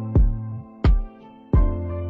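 Background music with a steady drum beat, a strike about every two-thirds of a second, over a bass line and held chords.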